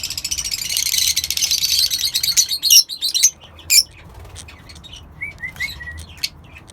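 African grey parrot chicks calling: a fast, rasping, pulsed chatter for about three seconds, then scattered short squawks and a few small chirps.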